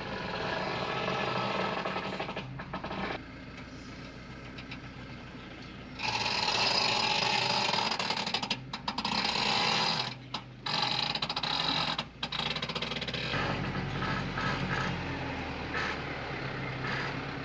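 Isuzu NPS truck's diesel engine pulling a Bushtracker off-road caravan slowly over rough dirt, with creaking and scraping from the caravan, whose low-hanging underside part is dragging in the dirt.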